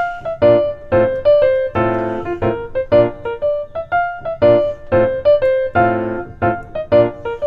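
Background music on piano: a run of quick notes over chords.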